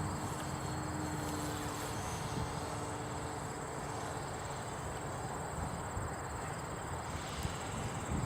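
Distant drone of a radio-controlled flying wing's motor that fades out within the first few seconds, over steady wind noise on the microphone.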